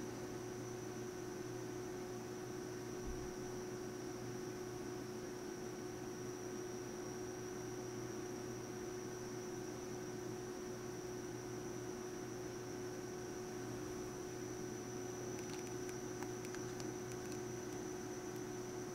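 Steady electrical hum with a high whine and a bed of hiss, with no music or other sound over it. A few faint crackles come near the end.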